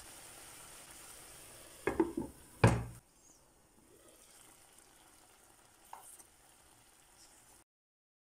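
Green beans simmering in a shallow pan of water, a faint steady bubbling hiss, broken about two seconds in by two sharp clanks of kitchen utensils against the pan as the beans are turned and the pan is handled. The sound cuts out abruptly near the end.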